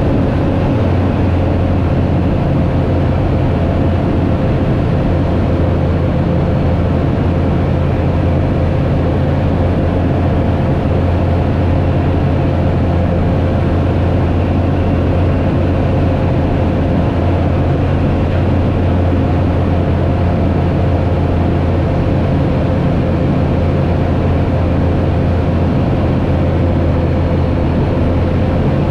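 Aeroprakt A-22 Foxbat light aircraft's engine and propeller droning steadily in cruise flight, heard inside the cockpit with rushing air noise.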